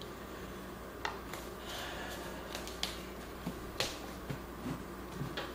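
A handful of scattered, sharp clicks of chef's knife blades tapping on plastic cutting boards over minced celery, heard against a faint steady hum.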